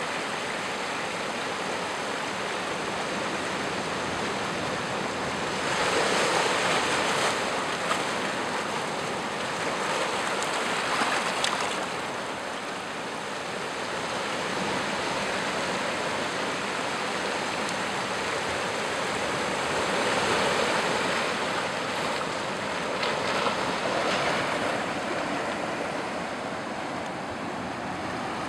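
Ocean surf washing in over a flat rock shelf and among boulders: a continuous wash that swells several times as waves break and run in.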